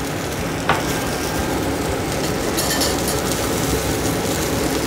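Seared beef roast and its fat sizzling steadily in a stainless-steel frying pan on low heat as spoonfuls of softened papelón (cane sugar) go in, with a brief louder hiss near the middle. A kitchen extractor fan runs underneath, and there is a light click about a second in.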